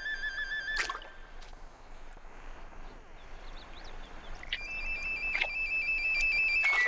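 An electronic warbling tone like a phone ringing: a short burst ending with a click just under a second in, and a second, higher one lasting about two seconds near the end, over a faint steady hiss.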